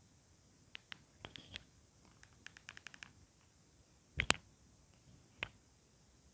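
Plastic clicks and taps from handling an Alcatel 1010X mobile phone, such as presses on its keys: a few single clicks, a quick run of about eight clicks, then a loud double click and one last click.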